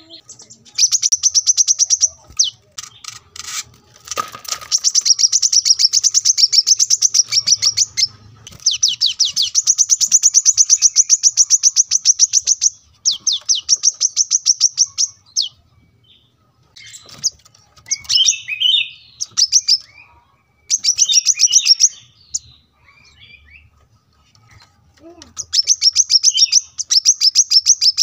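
Male brown-throated sunbird (kolibri kelapa) singing in bouts of very fast, high trills, each a few seconds long, with short pauses and some lower chattering notes between them.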